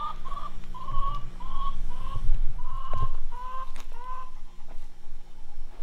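Chickens clucking: a string of about eight short calls over the first four seconds. A few low bumps and clicks come through around the middle.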